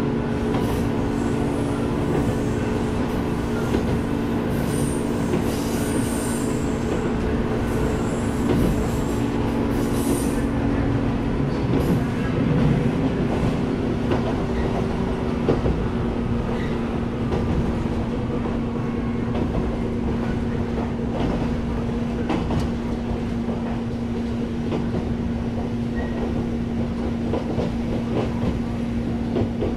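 Jōmō Electric Railway 700 series (ex-Keio 3000 series) resistance-control motor car running between stations, heard from inside: a steady motor and gear hum with wheels clicking over the rail joints. There are brief high wheel squeals in the first ten seconds.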